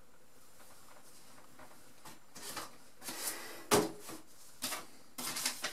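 Short rustling and handling noises starting a couple of seconds in, with one sharp knock in the middle and a cluster of rustles near the end.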